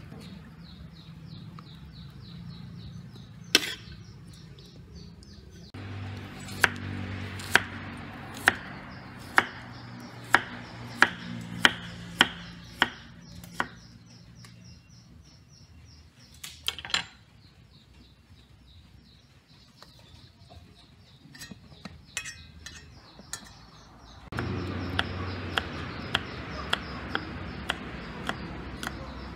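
Sharp knocks and scrapes of a utensil on a steel wok as fried rice is scooped out, then a slower run of about ten sharp knocks midway. Near the end a knife chops red chillies on a thick wooden chopping board, about two strokes a second.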